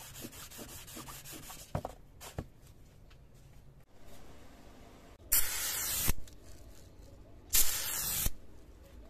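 Two short bursts from an aerosol spray-paint can, each under a second and about two seconds apart, painting a metal bubble level. Before them, gloved hands rub quietly on the metal level, with two light knocks.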